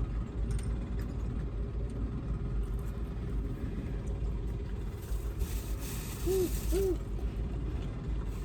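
Car engine idling, heard inside the cabin as a steady low rumble. A short hiss comes about five seconds in, with two brief rising-and-falling tones just after.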